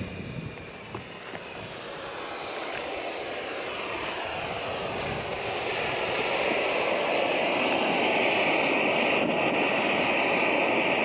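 Coleman canister-gas camping stove burner running under a lidded pot, a steady hiss that grows louder over the first few seconds and then holds.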